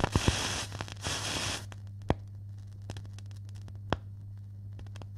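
Static hiss for about the first second and a half, then a steady low electrical hum with a few sharp crackling pops.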